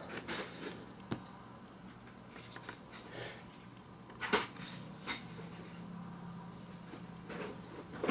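Light handling sounds of a plastic handheld laser distance meter being turned over in the hand: a few small scattered clicks and rustles over a faint steady low hum.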